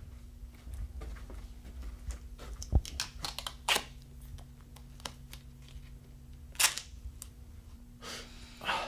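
Steady low hum with scattered sharp clicks and knocks over it. The loudest is a knock a little under three seconds in, with others near four and at six and a half seconds, and a short rustle near the end.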